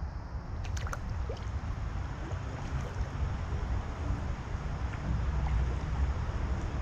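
Canoe gliding on a calm river, with water gurgling and lapping against the hull over a steady low rumble. A few light clicks come about a second in.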